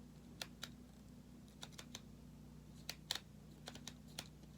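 Faint, irregular small clicks and taps, about ten in all, from small plastic gear being handled and its button pressed.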